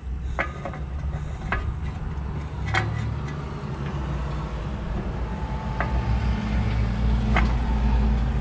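Scattered light metallic clicks, about five, as steel brake shoes are handled against a trailer's electric drum-brake backing plate, over a steady low rumble that grows louder toward the end.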